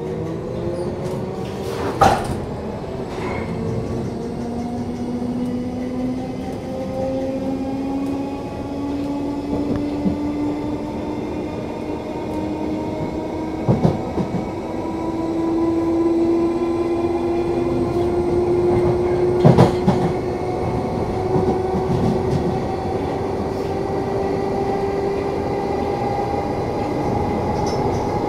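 London Underground 1972 Stock train running between stations, heard from inside the car: a steady rumble with a motor whine that rises slowly in pitch as the train gathers speed. A few sharp clacks from the wheels on the track stand out, the loudest about two seconds and about twenty seconds in.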